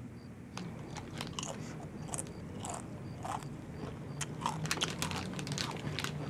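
A person chewing crunchy food noisily, with irregular crisp crunches a few times a second.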